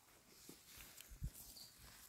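Near silence with a few faint rustles and clicks and one soft low thump a little past the middle: dry fallen leaves disturbed as a hand reaches in and grips a mushroom.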